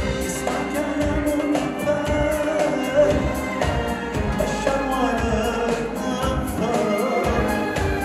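A man singing a devotional song with a live band, drums keeping a steady beat under the vocal melody.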